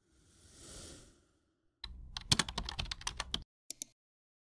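A soft whoosh swells and fades, then a computer keyboard types rapidly for about a second and a half, followed by two quick clicks like a mouse button.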